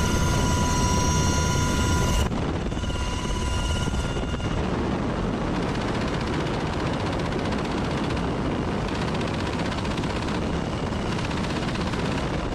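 UH-60 Black Hawk helicopter's rotor and turbine noise in flight, with the door-mounted M240 machine gun firing. The high turbine whine drops out about two seconds in, leaving dense, heavy noise.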